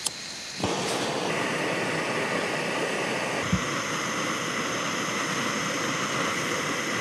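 Jetboil canister gas stove lit about half a second in, then the burner's flame giving a steady hiss. A brief low thump comes midway.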